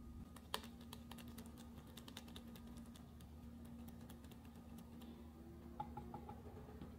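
Whisk beating eggs and flour into a batter in a glass measuring jug: faint, quick, irregular ticks of the whisk against the glass, thinning out about two-thirds of the way through.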